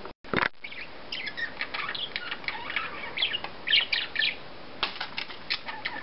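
Caged budgies chattering in short, high chirps, with wing flutters and a few sharp clicks near the end.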